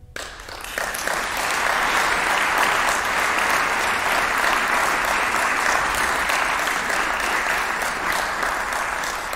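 Concert audience applauding at the close of an organ piece. The clapping starts at once, builds over the first second, holds steady and thins out near the end.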